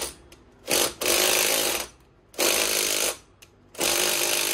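Impact wrench hammering in three bursts of about a second each, backing out the rear wheel bolt of a riding mower.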